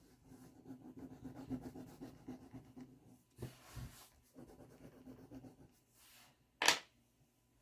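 Pastel stick rubbing across drawing paper in quick shading strokes, with a short pause and a couple of soft thumps about halfway through. A single sharp clack comes near the end, as a pastel is set down on the table.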